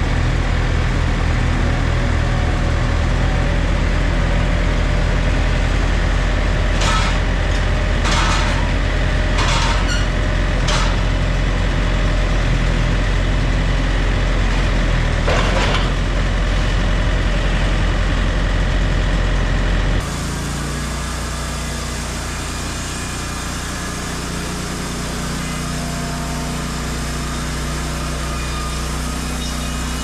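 John Deere 110 loader-backhoe's diesel engine running under load while its loader handles a heavy oak log, with several brief harsh noises from about a third of the way in. About two-thirds through, the sound changes abruptly to a quieter, steadier engine note.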